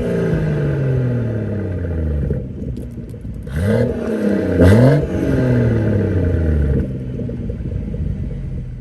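BMW 340i's turbocharged B58 inline-six with a full Dinan exhaust, blipped twice in quick revs near the middle, each dropping straight back to a steady idle.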